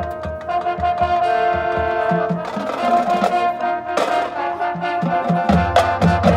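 High school marching band playing: the brass section holds sustained chords over drumline and front-ensemble percussion. There is a sharp accented hit about four seconds in, and a deep low bass note enters about a second and a half later.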